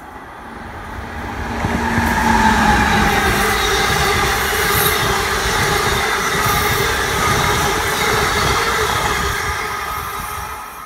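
Amtrak electric passenger train (electric locomotive and stainless-steel coaches) passing at speed. It gets louder over the first two seconds, then holds a steady loud rush of wheels on rail with some ringing, squealing tones. It drops off as the last car goes by near the end.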